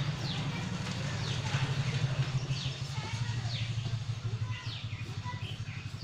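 A bird repeating a short, high, falling call about once a second over a steady low hum.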